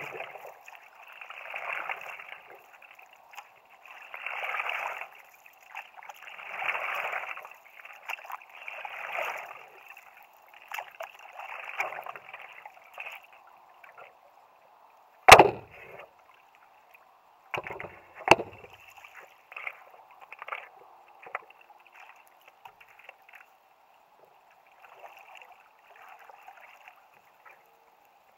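Stand-up paddleboard paddle strokes swishing through river water about every two seconds. They stop about halfway, where there are a few sharp knocks, the first one the loudest, as weeds snagged on the board's loose keel are cleared. Faint dripping and lapping water follow.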